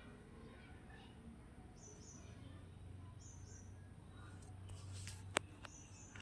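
Faint whisking of chocolate cake batter in a steel bowl with a wire whisk, with a sharp clink of the whisk against the bowl about five seconds in. Short high chirps, like a small bird's, repeat every second or so in the background.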